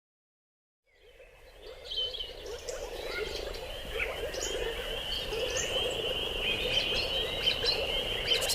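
Tropical outdoor nature ambience fading in after about a second of silence: a steady high-pitched chorus of calling animals with scattered short bird chirps above it.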